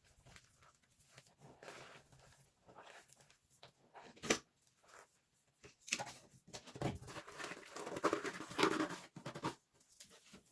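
Brittle microwave-puffed soap dusted with cornstarch being crushed by hand: irregular crunching and crackling, with one sharp snap about four seconds in and a dense run of crunching from about six to nine seconds.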